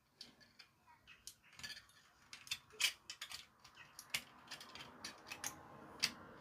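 Irregular small clicks and taps of plastic parts and screws being handled as a toy bubble gun is taken apart.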